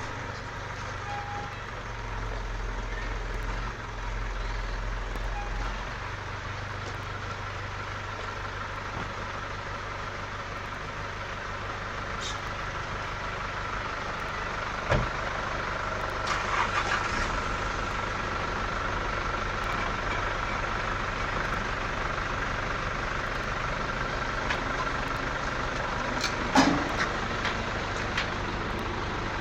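A steady, low engine drone with a few short knocks.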